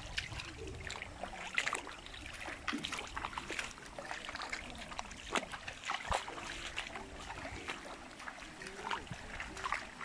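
Footsteps splashing through a shallow, stony stream, with irregular small splashes and pebbles clicking underfoot over the steady trickle of running water.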